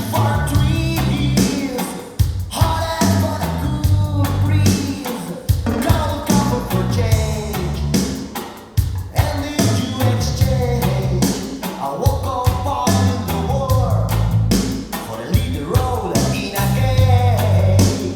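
A song with a singer's voice over bass and drums, played back through Børresen Acoustics loudspeakers driven by Gryphon Audio electronics.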